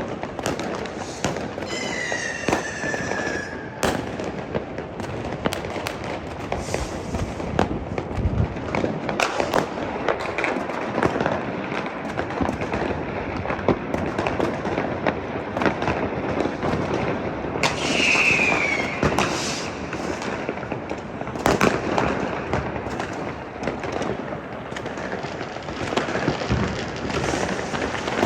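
Many fireworks and firecrackers going off at once: a constant crackle of bangs, with a whistling rocket falling in pitch about two seconds in and another near eighteen seconds.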